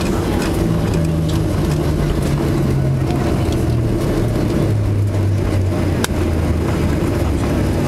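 Inside the cabin of a Boeing 737-800 decelerating on the runway after touchdown: a loud, steady rumble of the rollout with the CFM56 engines winding down, their hum falling in pitch over the first few seconds. A single sharp click about six seconds in.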